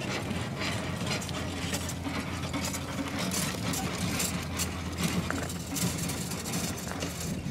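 Cargo bicycle towing a boxy wheeled trailer rolling past on a dirt road: tyres on the dirt with irregular clicking and rattling from the bike and trailer.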